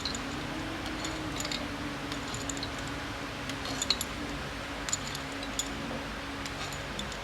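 Scattered light metallic clinks and taps of hand tools and bolts on an engine being dismantled, over a steady low hum.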